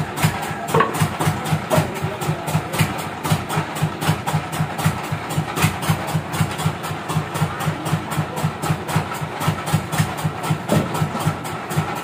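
Sawmill engine idling with a steady low pulse about four to five times a second, and a few light knocks as logs are shifted.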